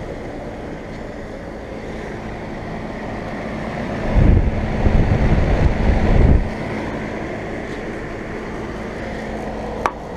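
Outdoor central air conditioner condensing unit running with a steady hum. Wind buffets the microphone loudly for about two seconds in the middle, and there is a short click near the end.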